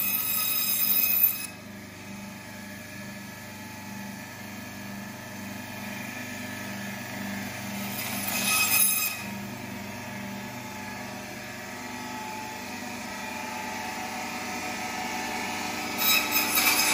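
Electric meat band saw running with a steady motor hum while its blade cuts through a whole duck carcass. The sound rises to a louder, high-pitched whine briefly at the start, about eight seconds in, and near the end.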